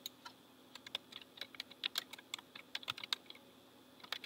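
Typing on a computer keyboard: two clicks at the start, then a quick, uneven run of keystrokes from about a second in as a short two-word entry is typed.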